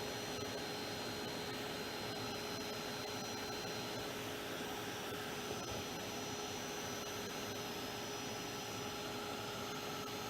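Handheld craft heat tool (embossing heat gun) blowing steadily, an even rushing hiss with a faint high motor whine that shifts slightly about halfway through, drying a layer of crackle medium so that it cracks.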